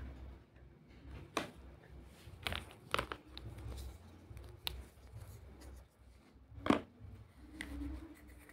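Small hard plastic toy pieces clicking and knocking together as they are handled, about half a dozen scattered clicks with the loudest about two-thirds of the way through.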